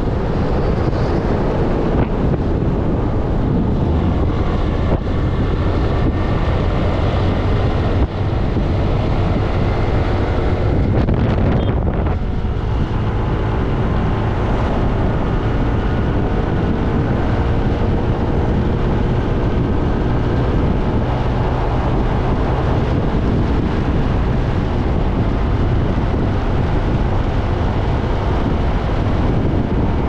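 A car on the move: steady engine and road noise, with wind buffeting the microphone and the engine note drifting slightly.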